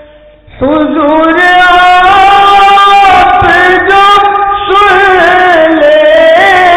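A naat sung solo. After a brief lull the voice comes in about half a second in, gliding into long, ornamented held notes.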